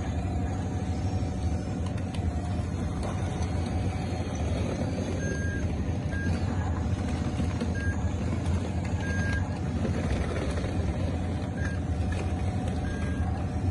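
Radio-controlled model bulldozer running on its tracks: a steady low drone, with a few short high beeps now and then.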